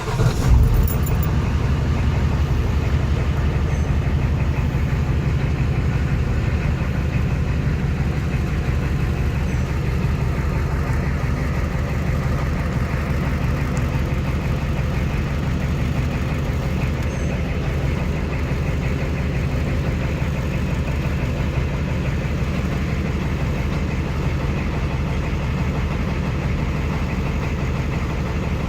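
Ford IDI diesel engine catching at the very start, then idling steadily with a rapid clatter. A steady squeal comes from the ZF5 five-speed manual transmission: its rear countershaft bearing race is spinning in the case.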